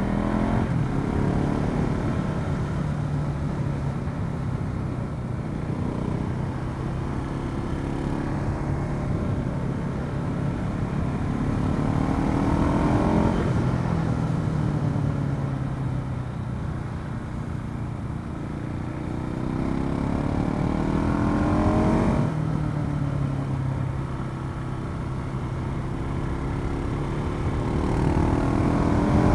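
KTM 690 SMC-R single-cylinder supermoto engine under way on a winding road, revs rising and falling as the rider accelerates and shifts, with a sharp drop in pitch at a gear change about two-thirds of the way through. Wind rush on the helmet camera runs underneath.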